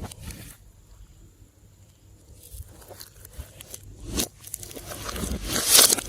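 Slime being worked by hand: after a quiet start, scattered sticky crackles and squishes that grow louder toward the end, with one sharper crackle a little after four seconds.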